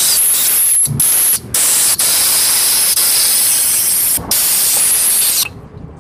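Compressed-air blow gun hissing loudly into a Honda Grand engine's oil passage to clear a blockage, with a few brief breaks in the blast and stopping shortly before the end.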